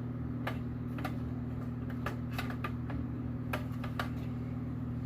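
Irregular light clicks and taps of metal and plastic pieces as an aftermarket car radio's mounting brackets are handled and fitted, over a steady low hum.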